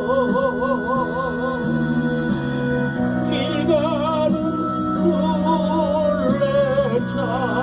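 Instrumental music from a praise song's backing track: a melody line with wide vibrato over sustained chords that change every second or two.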